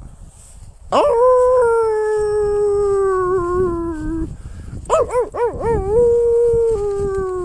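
Long drawn-out howling: a first howl starts about a second in and slides slowly down in pitch for about three seconds. After a short break comes a quick wavering run of rises and falls that leads into a second long howl, also falling slowly.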